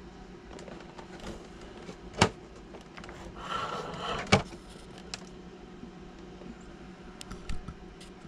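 Handling sounds from a plastic RC lowrider car being turned over in the hands: two sharp knocks about two and four seconds in, a short scraping rustle just before the second, and a few light ticks near the end, over a steady low hum.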